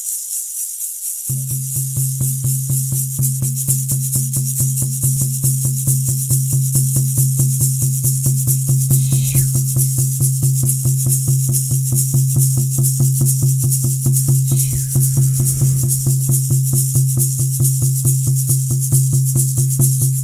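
Fast, even drumbeat of about four to five strokes a second, its ringing tone joining about a second in. A shaken rattle hisses over it, in the style of a Native American Church song's accompaniment, and two brief falling glides sound near the middle.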